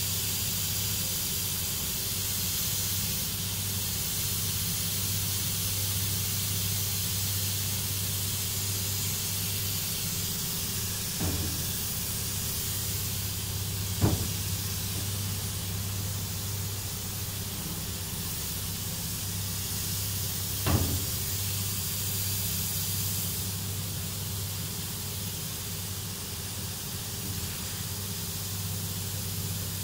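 Paint spray gun hissing as it sprays metallic paint, over the steady low hum of the spray booth's ventilation fans. Three short knocks come in the middle, and the hiss eases somewhat in the last few seconds.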